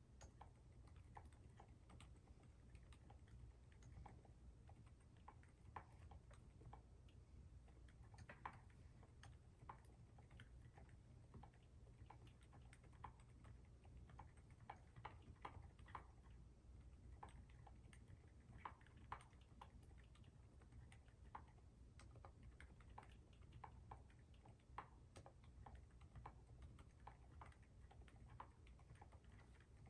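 Faint, muted key clicks of typing on a mechanical keyboard fitted with lubed and filmed silent alpaca switches, PBT keycaps and a dampener in the case. The keystrokes come in irregular runs and are soft enough that the keyboard is near silent.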